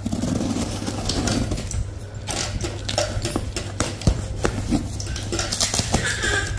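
A cardboard shipping box being cut open with scissors and torn apart by hand: packing tape and cardboard scraping, crackling and tearing, with many irregular clicks and knocks.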